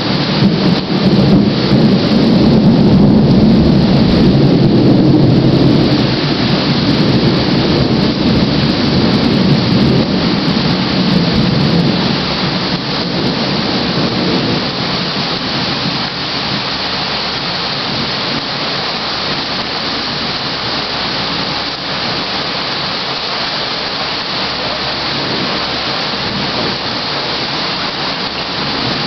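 A long rumble of thunder, loudest in the first few seconds and dying away before the halfway point, over the steady hiss of heavy rain.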